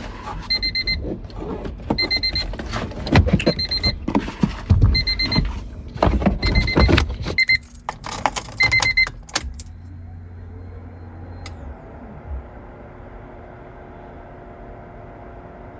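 A car's electronic warning chime beeps repeatedly, about once every 0.7 seconds, amid keys jangling and clattering knocks, and stops about nine seconds in. A low hum follows for about two seconds, then a steady faint hum remains.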